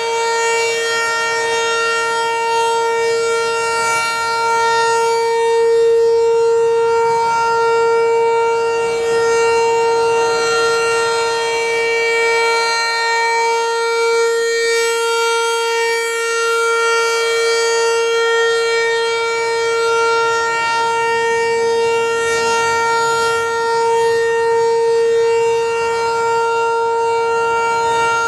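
American Signal T-128 electronic outdoor warning siren sounding the steady alert signal: one constant loud tone with its overtones, swelling and fading gently as the siren head turns.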